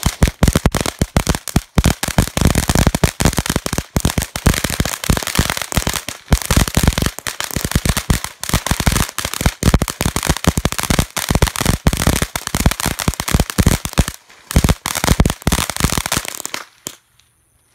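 Jalapeño Poppers ground firework going off, firing a dense, rapid run of sharp crackling pops. It dips briefly near the end, flares up again, then stops.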